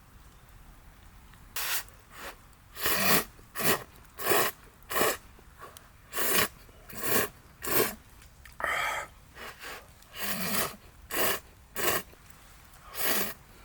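Someone slurping hot instant ramen noodles in a run of a dozen or more short, sharp slurps with brief pauses between them.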